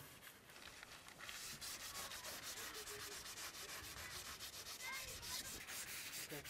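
Classroom board being wiped clean with an eraser: a quick run of rubbing strokes that gets louder about a second in.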